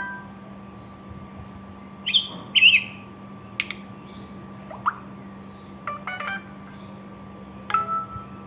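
Samsung Galaxy J3 (2016) phone playing a ringtone through its speaker: a sparse run of short electronic chirps, beeps and pitch glides. There are two bird-like chirps about two seconds in, a rising sweep and then a cluster of beeps with a falling glide mid-way, and a chime near the end, all over a faint steady hum.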